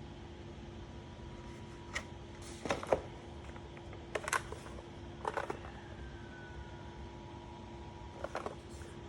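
Handling while unpacking a boxed mechanical keyboard: a few scattered clicks, taps and short rustles, the sharpest about three seconds in, over a faint steady hum.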